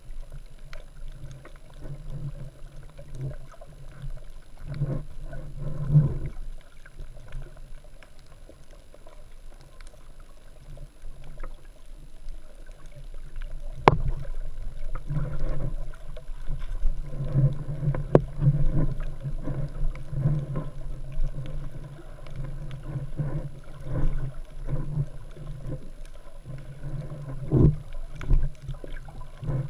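Muffled underwater water movement heard through a submerged camera's waterproof housing, a steady low rumble with scattered knocks and bumps, the sharpest about halfway through and a few more near the end.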